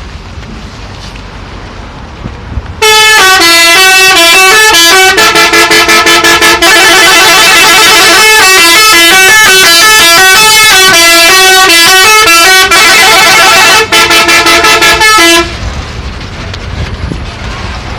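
Loud 'telolet' bus horn, a multi-tone musical air horn, playing a stepping melody of several tones at once, with quick stuttering toots in places. It starts about three seconds in and cuts off sharply about fifteen seconds in.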